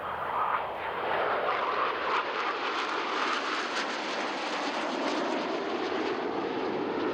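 Formation of jet aircraft flying overhead, a steady rushing jet noise.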